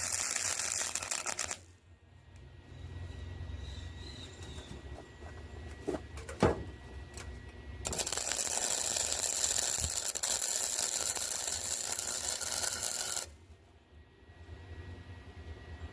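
Electric arc welding on steel: the arc crackles and hisses, then stops about a second and a half in. A low hum and two sharp knocks follow, then a second weld bead crackles steadily for about five seconds starting near the middle.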